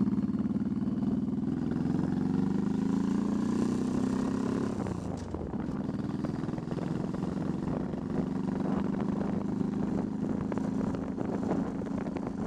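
Honda Shadow Spirit 1100's V-twin engine running under way, its pitch climbing steadily for about five seconds, then dropping back and holding at a steady cruise.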